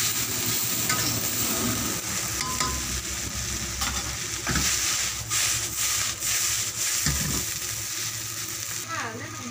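Vegetable chowmein noodles sizzling in a hot wok as they are stirred and tossed, with several scraping knocks of the stirring utensil against the wok.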